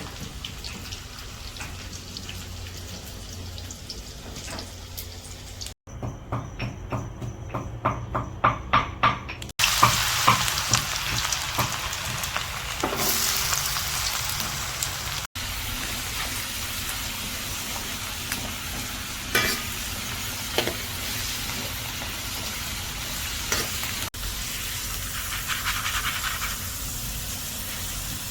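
Okra, beans and potato sizzling in a hot pan while being stirred. In the middle comes a run of evenly spaced knocks, about three a second, before a louder spell of sizzling.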